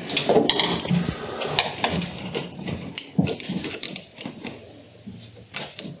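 Hands handling a washing machine's rubber drain hose and plastic pump connection: irregular small plastic clicks, knocks and rubbing, busier at first and fainter toward the end.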